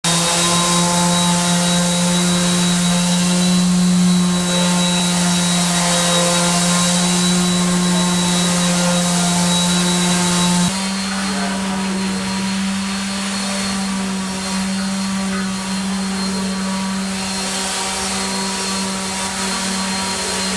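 Steady machine hum from a running motor, with a thin high whine over it. About eleven seconds in it drops abruptly a little in loudness and pitch, then runs on steadily.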